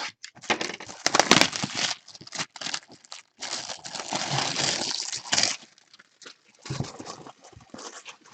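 Packaging rustling and crinkling in irregular bursts as a box of comics is opened, with two longer spells of handling.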